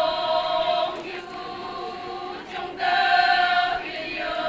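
Konyak Naga women chanting together in unison, a traditional group song sung in long held high notes, with loud phrases at the start and again about three seconds in.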